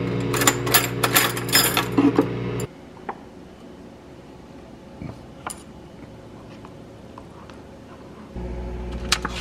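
Hamilton Beach microwave oven running with a steady hum while metal cutlery rattles and clinks in a drawer. The hum cuts off suddenly a little under three seconds in, leaving a quieter stretch with a few light clicks, and a hum comes back near the end.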